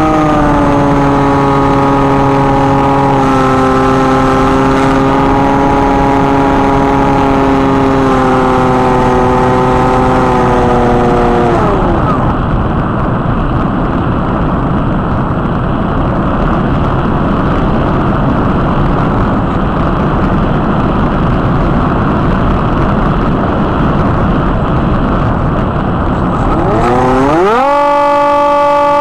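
Hawk Sky RC plane's electric motor whining at part throttle, with small shifts in pitch. About twelve seconds in, the motor winds down as the throttle is cut, leaving a steady rush of wind over the airframe. Near the end it spins back up with a fast rising whine.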